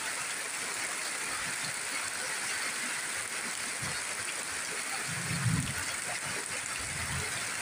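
Steady rain falling on banana leaves and a roof, an even hiss, with water running off the roof edge. A brief low thump about five and a half seconds in.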